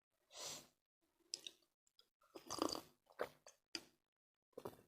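Faint close-up chewing and mouth sounds, a few short soft bits scattered between silences, as a last mouthful is eaten.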